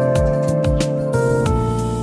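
Background music: a mellow instrumental track with held notes over a steady beat.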